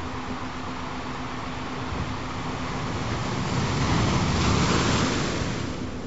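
Recorded ocean waves: a wave swells up, is loudest in the second half, then falls away near the end. A steady low tone runs underneath.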